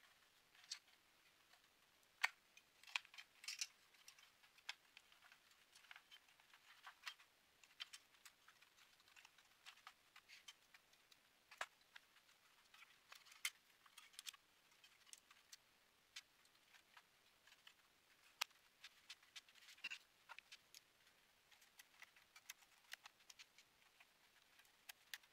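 Scattered light clicks and taps, at irregular times, of metal brackets and plastic parts being handled and fitted into the open chassis of a Dell 4350 projector during reassembly.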